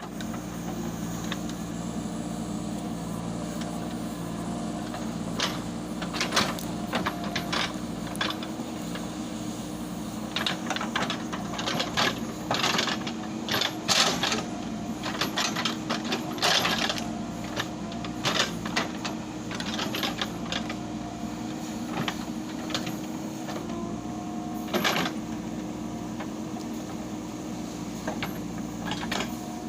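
JCB 3DX Super backhoe loader's diesel engine running steadily, with frequent irregular metallic clanks and knocks over it, thickest in the middle.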